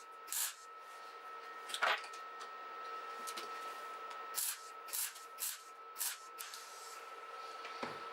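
Electric welder running with a steady high whine, broken by about seven short hissing bursts of the arc: quick tack welds, fixing nuts onto a bolt and ring.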